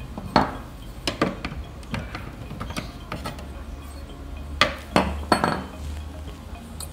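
Metal spanner clinking and knocking against nuts and the sheet-metal chassis of an opened inverter welding machine while the cable socket is undone from inside: a few scattered sharp strikes, the loudest cluster about four to five and a half seconds in.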